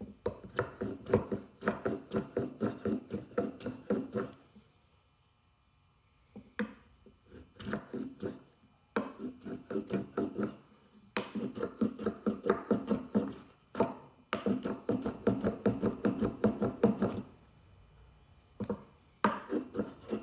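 Japanese hand plane taken in quick, short strokes along a wooden chamfer, about three to four a second, in several runs with brief pauses. The blade is somewhat dull and barely taking a cut.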